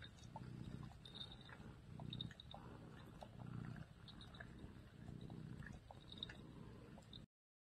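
A cat purring faintly, the rumble swelling and easing with each breath, mixed with small wet clicks of a Siberian husky's tongue licking the cat's head. The sound cuts off abruptly near the end.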